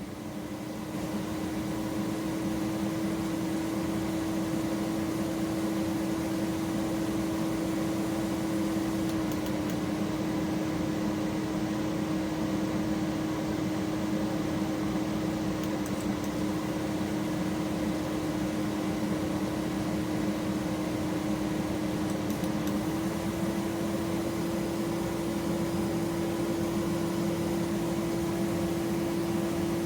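Fuel injector test bench running with a Honda D16 injector on it: a steady buzzing hum over a hiss, its pitch shifting slightly three times.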